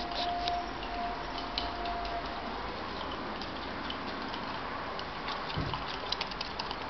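A chopstick clicking and scraping against the inside of a ceramic mug as mug-cake batter is stirred: irregular light ticks.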